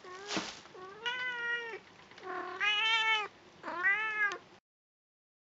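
Domestic cat meowing close up: a short call, then three drawn-out meows of about a second each, with a short thud about half a second in. The sound cuts off suddenly near the end.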